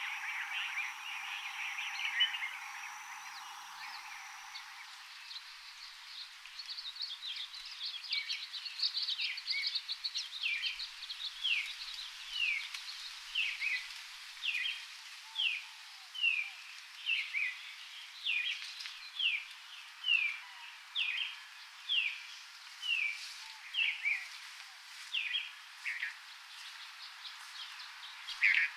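A bird singing a long run of short, sharp down-slurred notes, about one a second, after a few seconds of denser chattering calls at the start.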